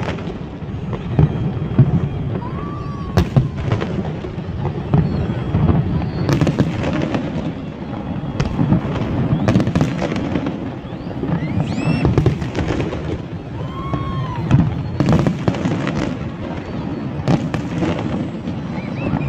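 Large fireworks display: a continuous barrage of bangs and booms over a dense low rumble, with many sharp reports throughout.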